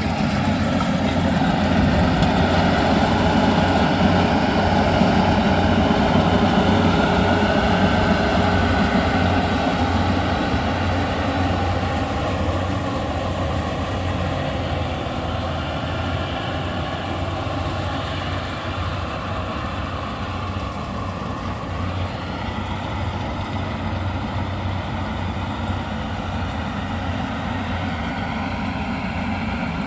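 Yanmar YH850 rice combine harvester running steadily with its diesel engine and machinery working, a little quieter in the second half.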